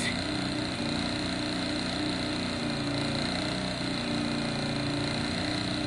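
An engine idling steadily, an even low hum with no change in speed.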